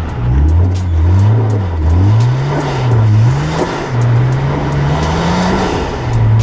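Nissan GT-R's twin-turbo V6 revving hard, its pitch swinging up and down several times as the throttle is worked through a slide, with scattered sharp ticks over the engine note.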